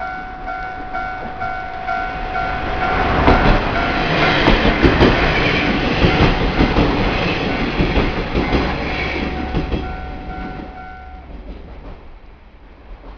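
Japanese level crossing warning bell ringing steadily as a diesel train passes, its wheels clattering over the rail joints, loudest in the middle. The bell stops about 11 seconds in and the train fades away.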